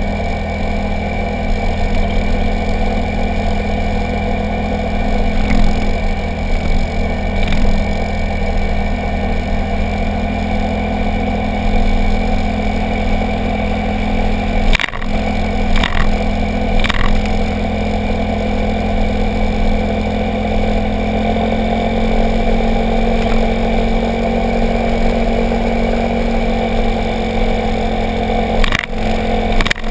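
Motorcycle engine running steadily under way, with road and wind noise, its pitch shifting slightly after about two-thirds of the way in. A few sharp knocks come about halfway through, three in quick succession, and once more near the end.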